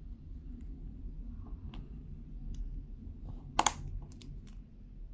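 Small plastic clicks and handling of an AKKO Starfish linear mechanical keyboard switch being pried open, with one louder, sharper click about two-thirds of the way through as the housing comes apart.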